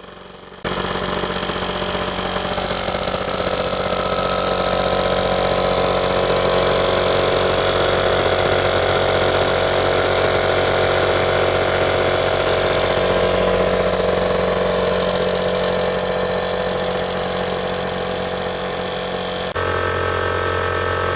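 Repaired electric air compressor switched on: it starts suddenly and runs loud and steady, its cylinder head now pumping air where before the repair only the motor turned. Its sound changes shortly before the end.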